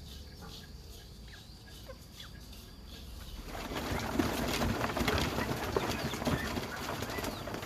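Poultry with faint calls at first, then flapping and rustling that turns loud and busy about three and a half seconds in.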